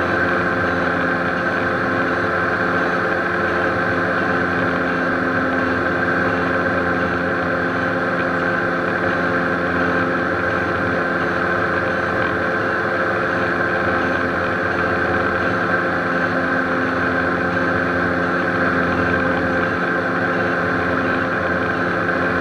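Steady drone inside the cockpit of a Beechcraft Baron B55 flying on its left engine alone, a six-cylinder Continental, with the right engine shut down and its propeller feathered and stopped: single-engine operation.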